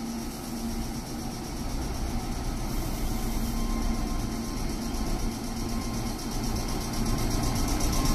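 Meitetsu 3500 series electric train pulling away from a station platform. A steady electrical whine from its traction equipment grows louder as it gathers speed.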